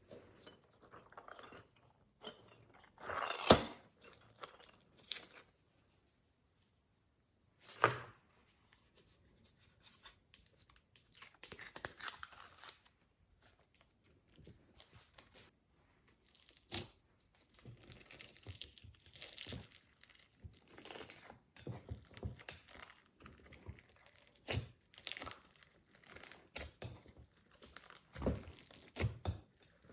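Glossy slime being worked by hand with things mixed into it, making irregular sticky crackling and squelching. There are two sharp, loud pops, the first a few seconds in and the second about eight seconds in.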